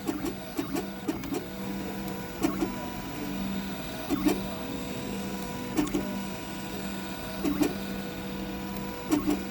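3D printer's stepper motors running with a steady electrical hum and a short burst of movement repeating roughly every second and a half to two seconds.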